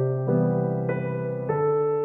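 Background music: slow, soft piano with held notes and chords changing every half second or so.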